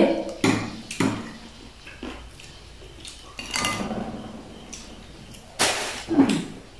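A metal spoon knocking and scraping against a bowl while someone eats, about five short clinks and scrapes spread over a few seconds.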